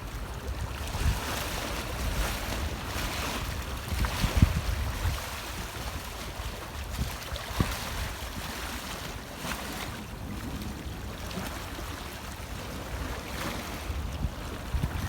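Sea waves washing and breaking in a steady hiss that swells and eases, with wind buffeting the microphone in low rumbling gusts, strongest about four seconds in.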